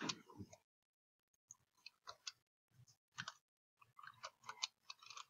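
Faint clicks of computer keyboard keys as digits are typed, a few separate keystrokes at first, then a quick run of them about four seconds in.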